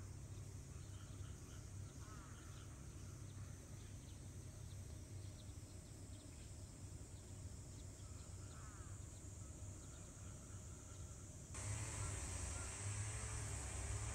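Quiet rural morning ambience: faint insects chirping and a few short arched calls over a low steady rumble. About eleven and a half seconds in, it changes suddenly to a louder hiss with a faint wavering tone.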